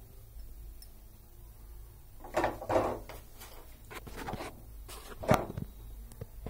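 Serving spoon scraping and knocking against the pan and a glass bowl as thick semolina halwa is spooned out: a string of short clatters about halfway through, the sharpest near the end.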